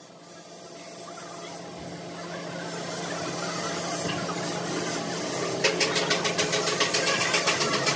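A machine running steadily and growing louder, with a fast regular beat of about four strokes a second setting in about two-thirds of the way through.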